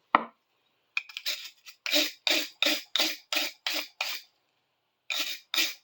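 Screwdriver being scrubbed by hand with an abrasive, a steady back-and-forth rubbing at about three strokes a second that pauses briefly past the middle and then resumes. A single knock comes at the very start, as the tool is picked up or set down.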